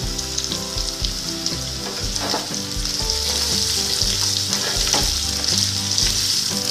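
Potato chunks frying in hot mustard oil in a wok, sizzling steadily while a wooden spatula stirs them.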